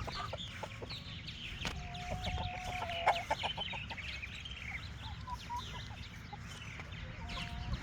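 Chickens clucking and calling, many short calls overlapping from several birds at once.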